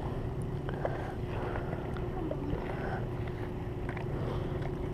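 Steady low rumble of wind noise on the microphone, with a few faint soft clicks.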